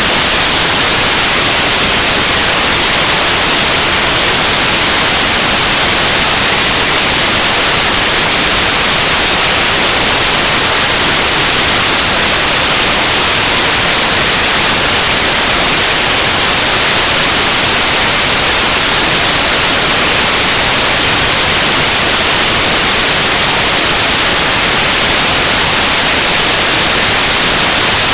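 Loud, even static hiss filling the webcam's audio track, with no singing or speech heard through it: the recording's sound is swamped by noise.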